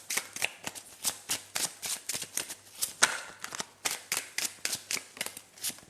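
A deck of reading cards being shuffled by hand: a quick, uneven run of crisp card snaps, several a second, with one sharper snap about three seconds in.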